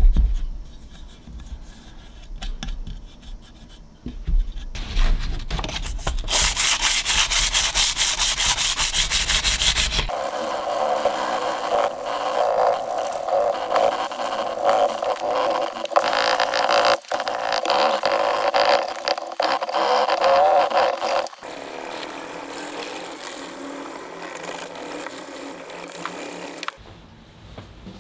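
Sandpaper rubbed by hand across a cured epoxy resin block, a dry scratchy rasp of quick back-and-forth strokes. It comes in several stretches that change in tone, quieter for the first few seconds and stopping shortly before the end.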